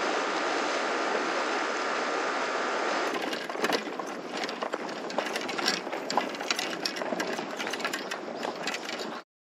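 Steady outdoor rush of wind and sea at the water's edge, then, about three seconds in, irregular clicks, scuffs and knocks of footsteps on a concrete sea wall while carrying fishing rods. The sound cuts out abruptly shortly before the end.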